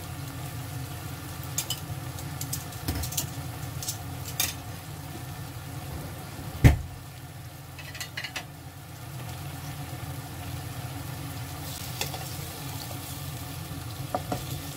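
Soy-based simmering sauce sizzling and bubbling in a frying pan of chicken and daikon, with light clicks of metal tongs as small radishes are put in. One loud knock comes a little under halfway through.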